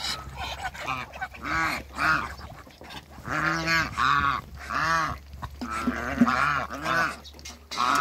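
Domestic geese honking, a run of short repeated calls, about two a second, that starts about a second and a half in.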